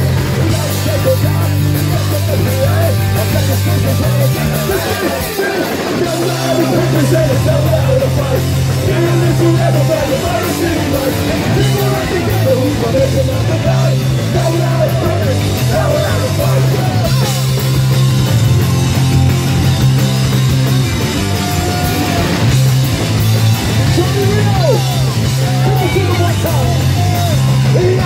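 Live punk rock band playing loud: distorted electric guitars, bass guitar and drum kit, with vocals sung into microphones. The bass drops out briefly about five seconds in, then comes back in.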